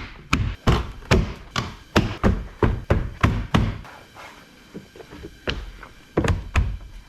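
A quick series of dull thunks and knocks on a car door's interior trim as the replacement inside door handle is pressed and knocked into place, about three a second for a few seconds, then a pause and a few more near the end.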